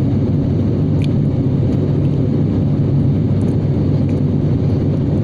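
Cabin noise of an ATR turboprop airliner: a loud, steady drone with a low hum from the engines and propellers.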